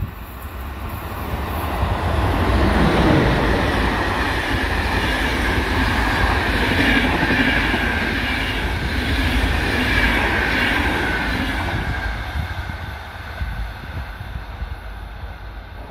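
CP Class 5600 electric locomotive hauling an Intercidades train of coaches, passing at speed. The sound swells as the locomotive goes by about three seconds in, then the coaches' wheels run on the rails in a sustained rush. It fades from about twelve seconds as the train recedes.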